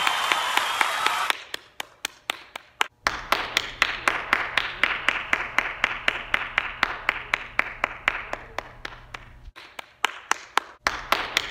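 Applause that cuts off about a second in, leaving one person clapping steadily, about four claps a second, with a pause of about a second near the end.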